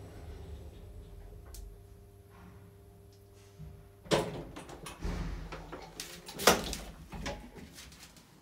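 Modernized 1960s FJV traction elevator finishing its run, a steady hum that cuts off with a loud clunk about four seconds in as the car stops. Then the center-opening sliding doors open, rumbling along, with a sharp bang about two seconds later, the loudest sound.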